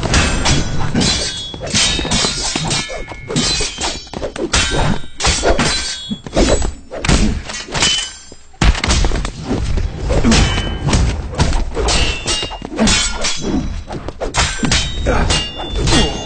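A fight's sound effects: a rapid run of punches, thuds and body blows mixed with metallic clangs and short ringing hits, with a brief lull about eight seconds in before one sharp hit.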